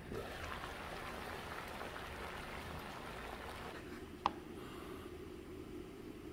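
Water simmering in a pot under a glass lid, steaming thin wood strips for bending. The bubbling and steam hiss grow louder as the lid is lifted. About four seconds in there is a single short, sharp click.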